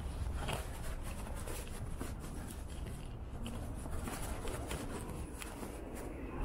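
Outdoor ambience: a low, steady rumble with faint, irregular clicks and scuffs scattered through it.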